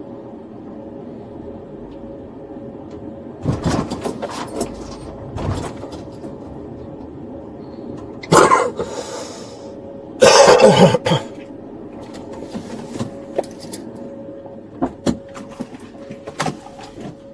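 A man's sudden throat noises inside a police patrol car: a few short bursts, then two loud ones about eight and ten seconds in, over the car's steady cabin hum. A few sharp clicks follow near the end.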